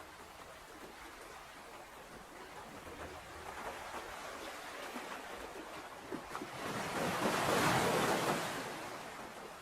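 Ocean waves washing onto a shore: a low steady wash, then one wave builds, breaks loudest about three-quarters of the way through and draws back.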